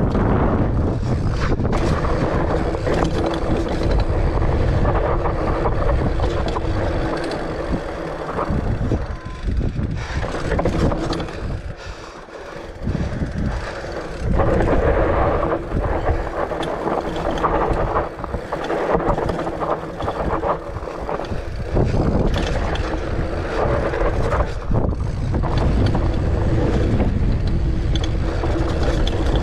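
Wind buffeting the camera microphone over the rumble of a fatbike's wide tyres rolling on dirt and rock, with frequent short knocks and rattles from the bike over rough ground. It goes quieter for a moment about twelve seconds in.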